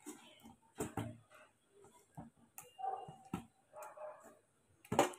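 A hand squeezing and mixing thick rice-and-lentil batter: a faint, irregular string of wet squelches and soft clicks.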